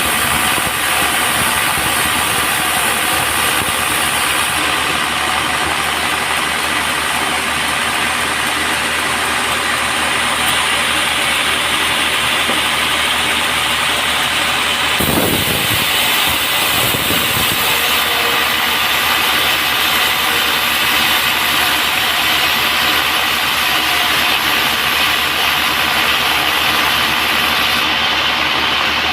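Band sawmill running steadily, a continuous mechanical drone with many steady tones and a hissing upper band, which shifts briefly about halfway through.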